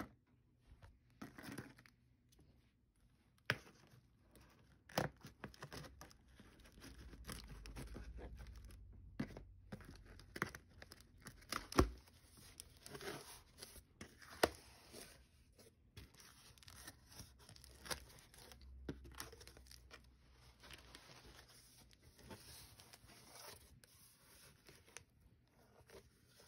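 Scissors cutting along the packing-tape seam of a cardboard shipping box, then the cardboard flaps being torn and pulled open: scattered sharp snips and snaps amid tearing and rustling.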